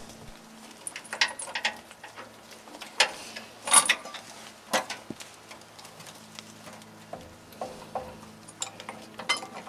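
Irregular metallic clicks and clanks from the hand-cranked cable winch of a homemade bumper dolly as it is cranked.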